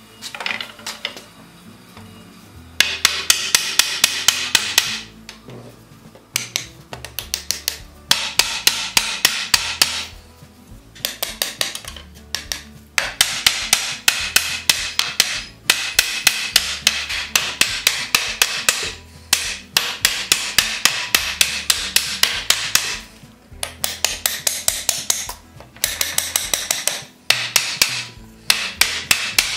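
Steel hammer tapping a new wooden felloe half down onto the spoke tenons of a buggy wheel, in quick runs of light blows, about five a second, with short pauses between runs.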